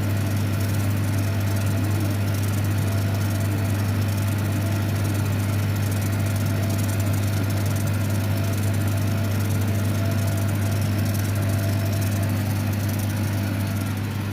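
Steady low electrical hum from a CO2 laser cutting machine and its running auxiliary equipment, unchanging throughout.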